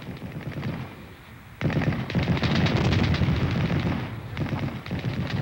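Battle sound effects of rapid gunfire and machine-gun fire. The firing thins and dips briefly, then swells louder and denser with a heavy low rumble from about a second and a half in.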